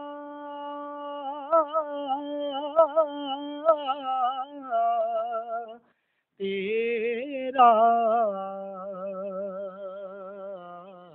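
A single voice singing a naat, an Urdu devotional poem in praise of the Prophet, in long held notes ornamented with quick melodic turns. The voice cuts off suddenly for about half a second around six seconds in, then comes back on a higher phrase that settles into a steady vibrato and fades.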